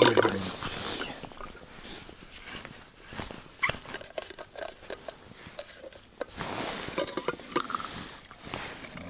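Gloved hands handling a stainless steel vacuum flask, with scattered clicks of its screw cap and stopper and rustling of clothing and a plastic bag.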